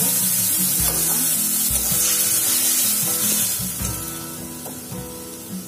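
Ground masala paste sizzling loudly in hot tempering oil in a kadai, the sizzle dying down after about three and a half seconds.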